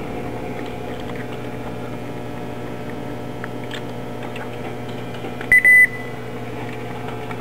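A Toyota Prius dash chime: a short high beep followed at once by a longer one about five and a half seconds in, as the power button is pressed and the hybrid system comes to READY. A steady low hum runs underneath.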